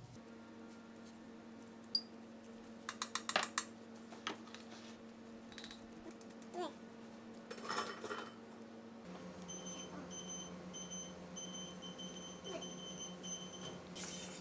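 Light clicks and clinks of a metal baking tray as dough is pressed and moved on it, over a steady electrical hum; a quick run of clicks comes about three seconds in. After about nine seconds a faint high, pulsing tone joins the hum.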